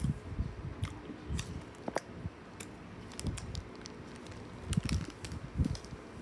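Someone chewing an Oreo cookie: irregular soft low chomps with scattered small clicks.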